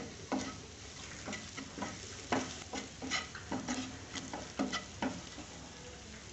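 Wooden spatula stirring and scraping onion, garlic and green chillies frying in a little oil in a non-stick pan, a little over two strokes a second over a faint sizzle. The stirring stops about five seconds in.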